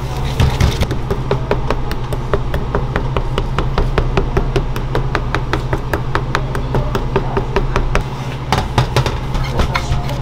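Rapid, even tapping from kitchen work, several taps a second, over a steady low hum. Near the end the taps give way to a few louder, irregular knocks.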